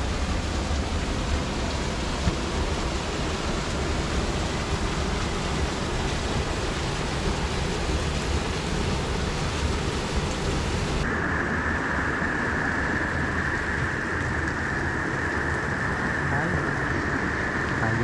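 Waterfall and mountain stream rushing in a steady, even roar. About eleven seconds in, the sound changes abruptly to a narrower, brighter hiss of water.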